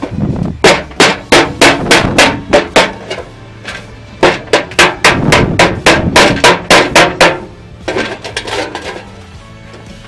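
A heavy knife blade used as a hammer, tapping a small nail into the thin floor of a sheet-metal box with sharp metal-on-metal strikes, about three a second. The strikes come in two runs with a short pause between, then a few fainter taps near the end.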